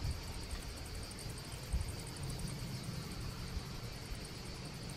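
Open-air summer ambience: a steady, high-pitched insect chorus with a fast pulsing rhythm, over a low, uneven wind rumble on the microphone.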